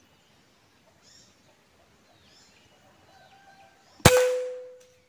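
A single air-rifle shot about four seconds in: a sharp crack followed by a metallic ring that fades within about a second. Faint bird calls come before it.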